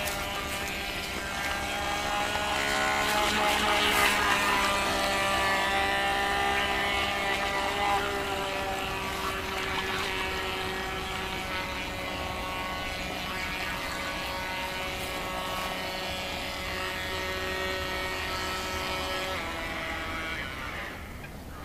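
Small electric RC race boat's motor whining as it runs across the water, the pitch shifting with the throttle; it eases off briefly near the end.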